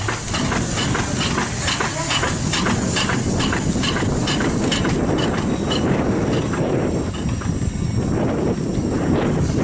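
Antique steam traction engine running at a stationary idle, its exhaust chuffing in an even beat of about four a second over a steady hiss of steam.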